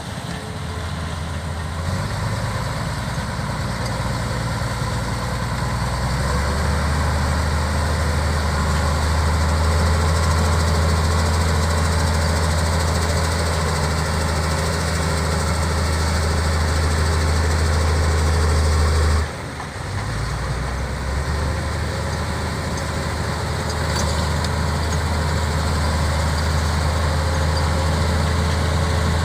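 Bulldozer's diesel engine running with a steady low drone that slowly grows louder. The sound drops briefly about two-thirds of the way through, then carries on.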